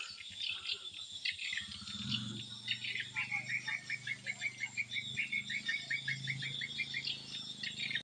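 Swiftlets twittering at a nest house: a dense run of short, high chirps that settles into an even series of about four a second. A low steady hum comes in about two seconds in.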